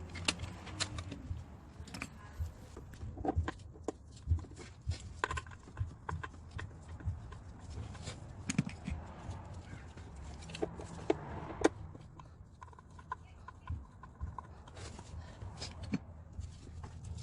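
Irregular clicks, taps and knocks of hand tools, bolts and the plastic upper timing belt cover being fitted to the engine, over a low steady hum.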